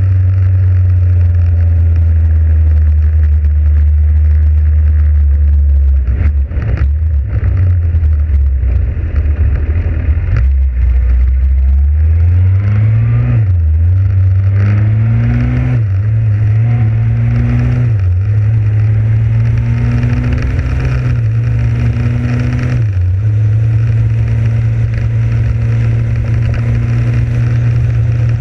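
Motorcycle engine, heard from the bike itself, running steadily at first, then accelerating through the gears from about halfway in. Its pitch climbs and drops back at each of about four upshifts, over a steady rush of wind.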